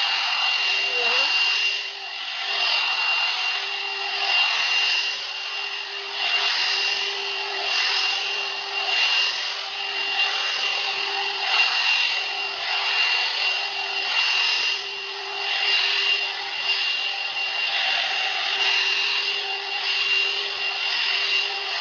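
A 1000 W hot air brush (hair dryer brush) running steadily, its motor giving a high whine over the rush of air. Its loudness swells and eases every second or two as the brush is drawn through hair, with rubbing from the bristles.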